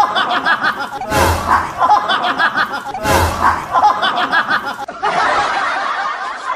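Looped laughter sound effect: the same clip of snickering laughter repeats about every two seconds, each repeat opening with a low thump. About five seconds in, it gives way to a different, steadier stretch of laughter.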